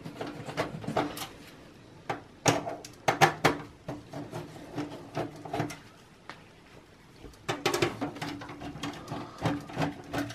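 Screws being taken out of a desktop computer's power supply and the metal case being handled: an irregular run of clicks, knocks and light metallic clatter, loudest about three seconds in.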